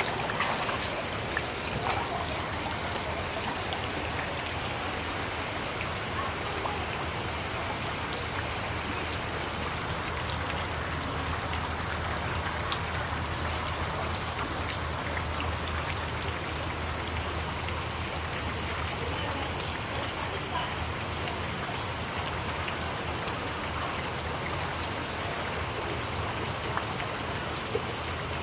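Steady hiss of rain falling on standing floodwater, with scattered drop ticks.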